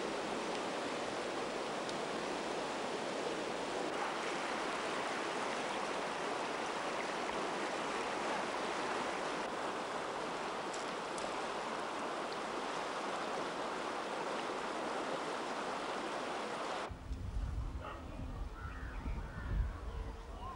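Rushing river water, a steady even wash. About seventeen seconds in it cuts off abruptly to a quieter scene with low rumbling, a few knocks and faint chirping calls.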